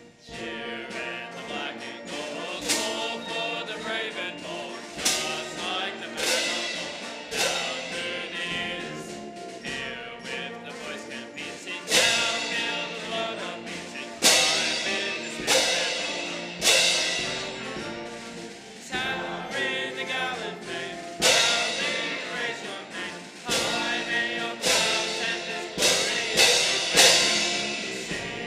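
A school song sung by many voices with band accompaniment, with loud drum hits every second or two.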